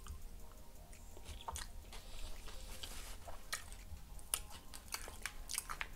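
Close-miked chewing of a mouthful of burrito bowl (rice, lettuce, guacamole): quiet, irregular small mouth clicks and smacks.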